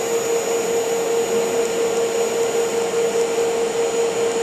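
TIG welding arc burning steadily: an even hiss with a constant hum and a faint high whine, as filler rod is added to the weld.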